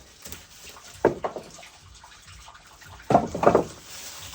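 Rubber mallet striking a block of wood held against a hydraulic cylinder's end cap: a short cluster of blows about a second in and a louder double blow around three seconds in. Between the blows, hydraulic oil dribbles out of the loosening cylinder.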